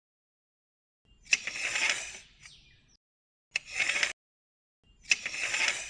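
Short bursts of mechanical clicking and rattling, each starting with a sharp click, four of them separated by abrupt silences.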